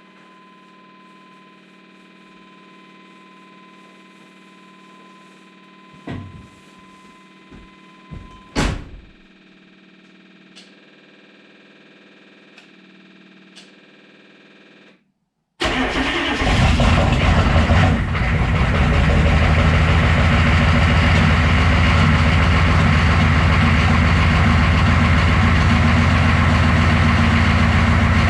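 For about fifteen seconds there is only a faint steady hum, a thin steady tone and a few knocks. Then the Chevy K2500's 6.5-litre turbo-diesel V8 cranks and catches on a cold start, runs ragged for a couple of seconds and settles into a loud, steady idle through a 4-inch straight pipe.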